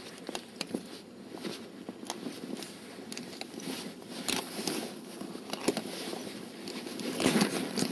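Handling noise of a running camcorder being carried in a bag: bag fabric rustling over the microphone, with irregular small knocks and scrapes and a louder scuffle near the end.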